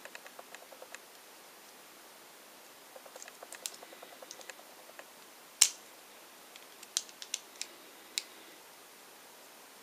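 Small hard plastic toy pieces from a Kinder Surprise egg clicking and tapping as they are handled and fitted together by hand. The clicks come in scattered bunches, with one sharp, much louder click about halfway through and a few more a second or two later.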